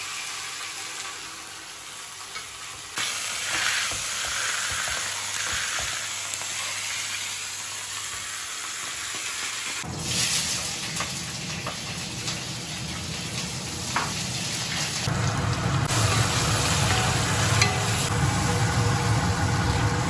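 Hot oil sizzling as a whole fish fries on an electric grill pan, then vegetables sizzling in a wok over a gas burner as they are stirred. A low rumble joins the sizzle from about ten seconds in.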